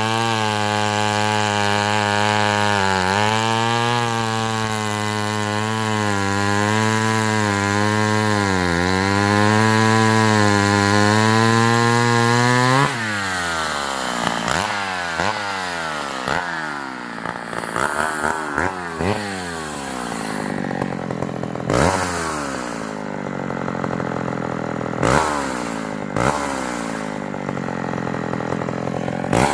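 Vintage Sears D-44 70 cc direct-drive two-stroke chainsaw running at full throttle for about the first 13 seconds, its pitch sagging and recovering as it cuts through maple. Then the revs fall away suddenly and the saw runs slower and unevenly, with several short blips of the throttle near the end.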